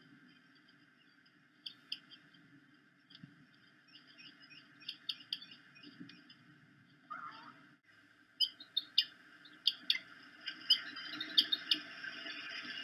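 Bald eagles at the nest giving short, high chirps. They are faint and scattered at first, then become a louder, quicker run of chirps from about eight seconds in, over a low steady hiss.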